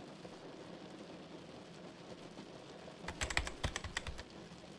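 Fast computer-keyboard typing sound effect: a quick run of key clicks starting about three seconds in and lasting just over a second, over a faint low background ambience.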